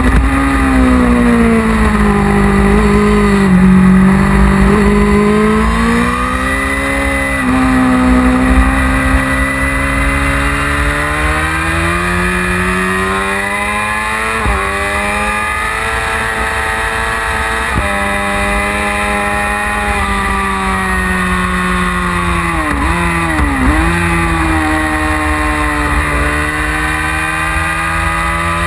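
1999 Yamaha R6's inline-four engine running hard on a race track. Its pitch falls over the first few seconds, then climbs, with short breaks at gear changes, and dips sharply and recovers about two-thirds of the way through. A low rumble of wind buffets the onboard microphone.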